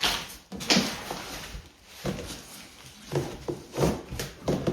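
Packaging being handled as parts are taken out of a box: a string of short rustles and knocks, about half a dozen in a few seconds.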